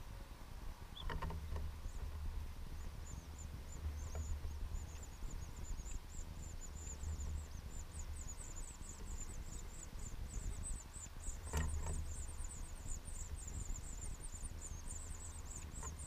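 House finch nestlings begging: rapid, very high-pitched peeping that starts a few seconds in and grows denser as the adult feeds them. A low rumble runs underneath, with two brief knocks, about a second in and near twelve seconds.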